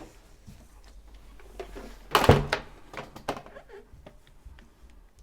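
Handling noises on a sewing machine while it is rethreaded: light clicks and taps, with one louder thunk about two seconds in.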